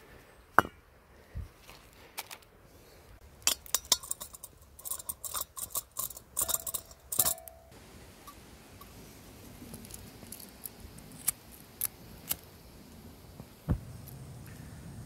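Metal clicks and clinks as a small gas camping stove is handled and fitted onto a butane-propane canister, busiest in the first half. Near the end a single click, then a steady low rush, as the gas is turned on and lit with a lighter.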